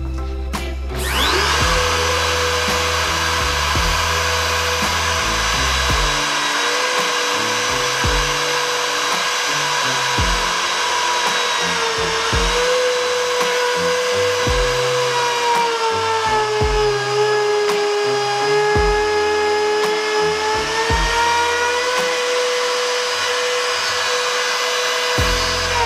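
Compact electric router spinning up about a second in, then running with a steady high whine as it routes wood, its pitch sagging a little at times as the bit takes load.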